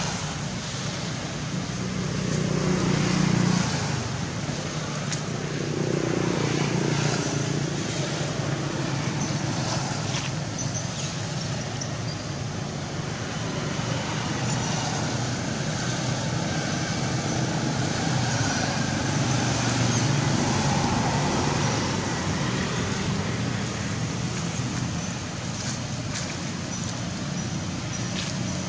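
Steady outdoor background noise, strongest low down with a wash of hiss above, swelling and easing slowly.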